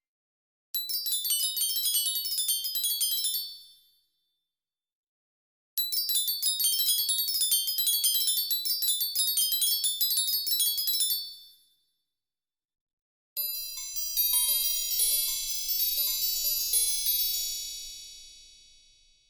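Magic chime sound effect played three times, with short silences between: rapid runs of high, tinkling bell notes, each lasting about three to six seconds. The third run has some lower notes as well and rings out slowly at the end.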